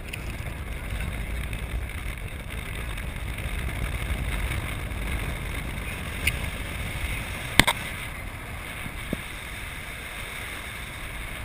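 Steady rumble and rush of a moving cable car cabin and the wind around it, heard from inside the cabin, with a few sharp clicks; the loudest click comes about two thirds of the way through.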